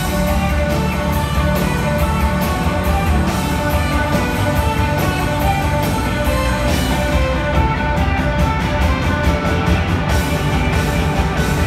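Live blues-rock band playing: electric guitars, bass guitar, drum kit and organ, with a dense run of drum strokes about two-thirds of the way through.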